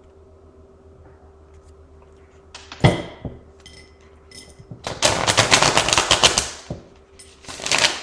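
A tarot deck being handled and shuffled: a sharp tap almost three seconds in, a few light card clicks, then a rapid run of clicking cards lasting about a second and a half, and another short burst near the end.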